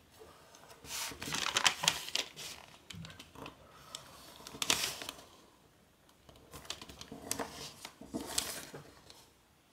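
A sheet of pleated origami paper crinkling and rustling as it is folded and creased by hand. The crisp crackling comes in three spells.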